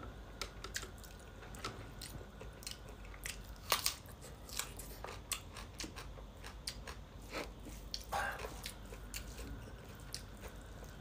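A person chewing a mouthful of pork intestine curry close to the microphone: many small, irregular wet mouth clicks and crunches, one louder about four seconds in.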